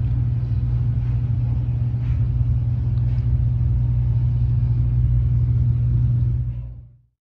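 Domestic cat purring close to the microphone: a steady, loud low rumble with a fine fluttering pulse, fading out near the end.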